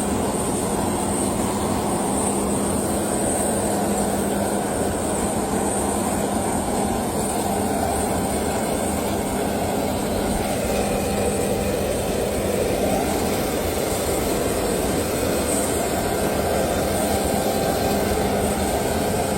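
Private jet's engines and airflow, a steady rushing drone with a constant low hum and a thin high whine.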